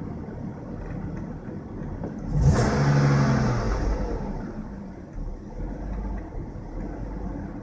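BMW engine idling with its new fan clutch installed; about two and a half seconds in the revs rise sharply and fall back to idle over a second or so. The owner says the car idles weird with this fan clutch fitted.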